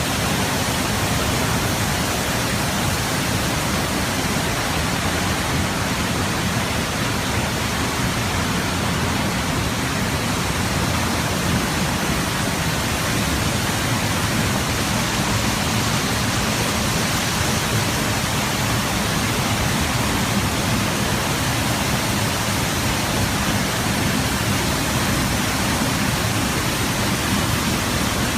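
Waterfall: a loud, steady rush of falling water that never changes.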